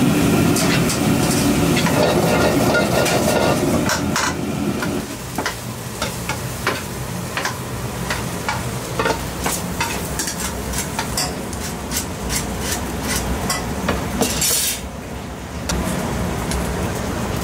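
Rice noodles sizzling in a wok over a gas wok burner, which gives a steady low rumble, while a metal ladle scrapes and clacks against the wok as they are stir-fried. The sizzle is loudest in the first few seconds. Near the end it gives way to softer sounds as prawns are mixed in sauce in a steel bowl.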